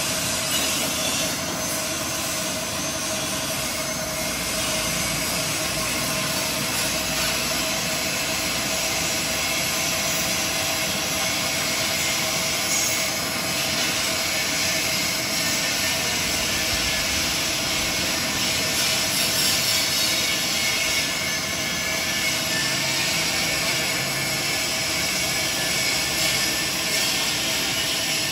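Steady mixed din of metalworking machines running, lathes and a grinder, a constant whine over a high hiss with no breaks.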